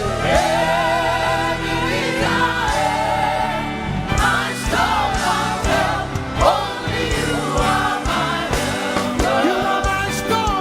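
Live gospel praise music: voices singing together over a band with drums and bass.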